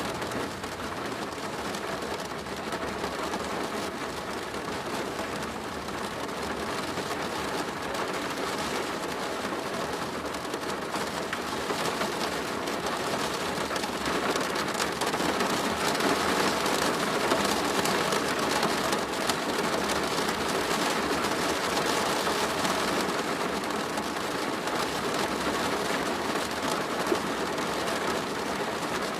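Steady rain pattering on a plastic roof, an even dense hiss of drops that swells a little in the middle.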